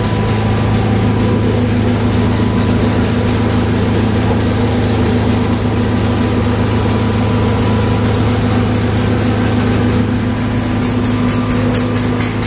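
Double diaphragm pump and drum screen running while pumping slurry: a steady, loud mechanical hum with a fast, even ticking, plainest near the end.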